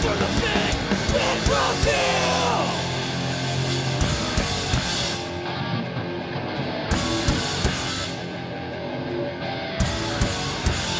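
Hardcore punk band playing live, with distorted electric guitars, bass and drums and vocals over the first few seconds. The bright top end drops out twice in the second half, for a second or two each time.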